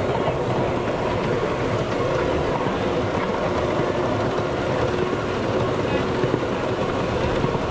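Miniature ride-on train running along its track, heard from a seat in an open passenger car: a steady rumble of wheels on rail and the train's drive.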